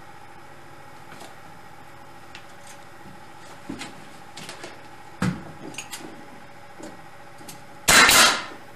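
Aspen tongue-and-groove boards knock and click lightly as they are worked into place. Near the end comes one loud, sharp blast from a pneumatic nail gun; it has run out of nails.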